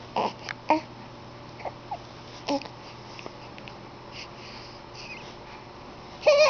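A newborn baby's small, brief coos and grunts, then a louder pitched sound near the end.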